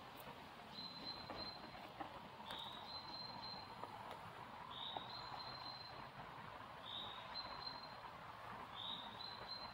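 A bird calling over and over, each call a short rising note running into a high, thin held whistle, about every two seconds.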